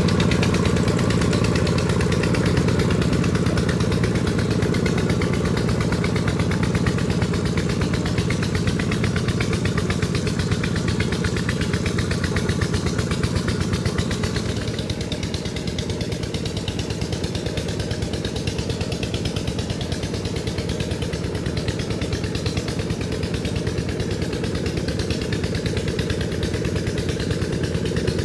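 Two-wheel walking tractor's single-cylinder diesel engine running steadily under load as it pulls cage wheels and a plow through a muddy paddy, with a fast, even beat. It drops a little in level about halfway through.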